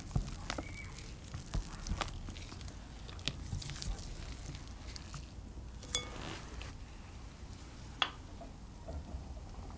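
Silicone spatula folding egg-yolk batter into meringue in a glass bowl: soft wet squishing and scraping, with a few short taps against the bowl, the sharpest near the end.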